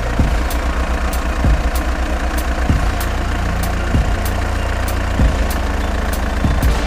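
Steady low idling engine-like drone, with a regular beat of light ticks about every half second and deeper thumps a little over once a second.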